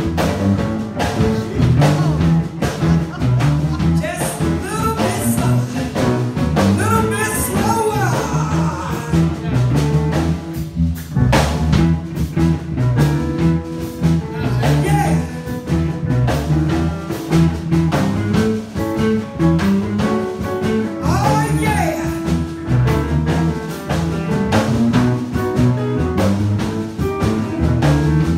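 A woman singing live into a microphone over amplified musical accompaniment with a steady, repeating bass line.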